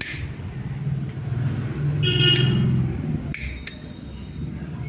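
Steady low rumble of passing road traffic that swells about two seconds in, with a short horn-like honk at the same time and a few sharp clicks a little later.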